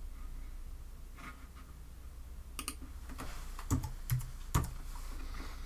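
Computer keyboard keystrokes and mouse clicks, a scattered handful of taps with three louder ones a little past the middle, over a low steady hum. This is the sound of a typo being corrected in a form field.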